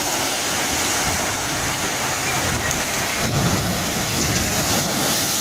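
Loud, steady rushing of wind and breaking water in rough seas, with no let-up.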